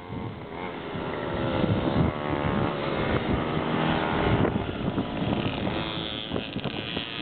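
Mini motocross bike engine revving as it rides along a dirt track, its pitch rising and dropping back several times.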